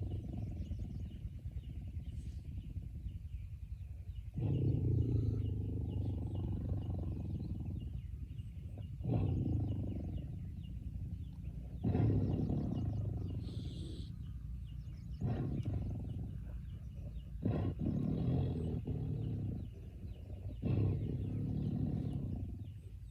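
A recorded tiger roaring: a series of deep roars and growls, about six in a row, each lasting one to three seconds.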